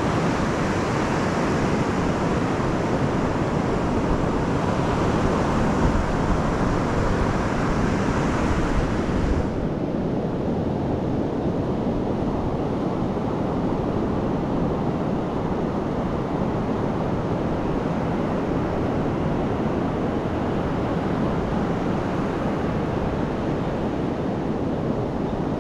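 Pacific surf washing in over a flat sandy beach: a continuous rush of breaking waves and foam, with a low rumble of wind on the microphone. The brighter upper hiss cuts away abruptly about ten seconds in, leaving a duller rush.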